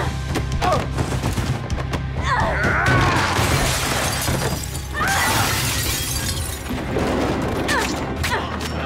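Movie fight-scene sound over background music with a steady low beat. A long shattering crash of breaking glass and debris starts about two seconds in, another crash follows, and the fighters give short shouts and grunts.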